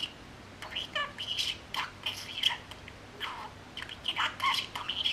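Talking pet budgerigar chattering in short bursts of scratchy chirps and warbles, with brief pauses between them.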